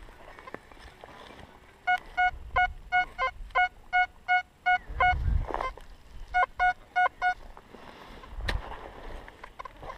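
Metal detector sounding a target: a fast run of short, identical electronic beeps at one steady pitch, about three a second, then a second shorter run of four beeps as the coil is swept over the spot again. A low thump falls between the two runs, and a sharp knock comes near the end.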